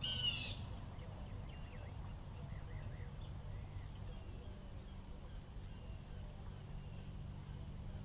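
Mockingbird at the nest giving one short, harsh, raspy call right at the start, followed a couple of seconds later by a few faint soft chirps, over a steady low rumble.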